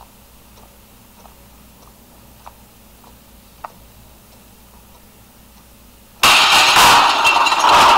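Faint, even ticking of a wall clock, a little under two ticks a second, over a low hum. About six seconds in, a sudden loud, harsh burst of noise cuts in and keeps going.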